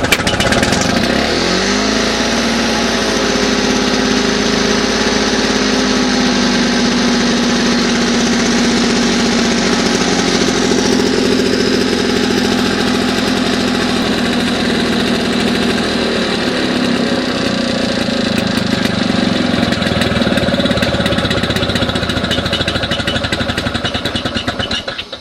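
Victa lawn mower engine running at full throttle on a freshly rebuilt G4 carburettor. The revs climb over the first couple of seconds, then hold steady, and the engine cuts out just before the end.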